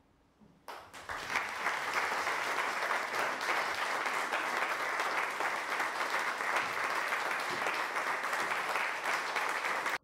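Audience applauding, a dense steady clapping that starts about a second in after a moment of near silence.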